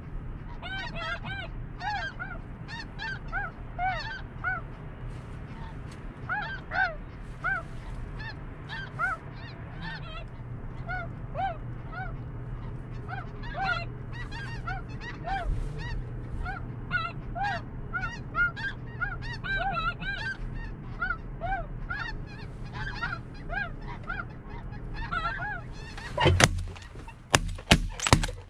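A flock of snow geese calling overhead, a steady stream of high, overlapping honks. About two seconds before the end, a quick volley of several shotgun blasts breaks in.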